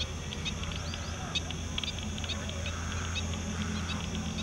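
Many wild birds at a wetland calling at once: a dense scatter of short, high chirps and quick upward-flicking calls, over a steady low hum.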